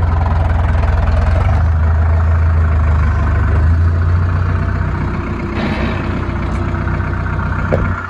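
Tractor diesel engine running steadily with a strong deep hum. A short hiss comes about five and a half seconds in.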